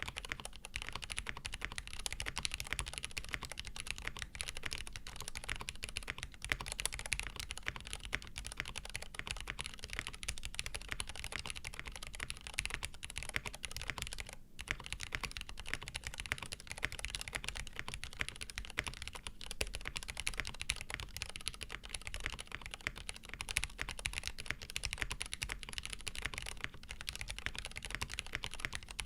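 Fast, continuous typing on a tape-modded Frog TKL mechanical keyboard with lubed Cherry "Nixie" linear switches, a POM plate and GMK keycaps: a dense stream of keystroke clacks, with a brief pause about halfway through.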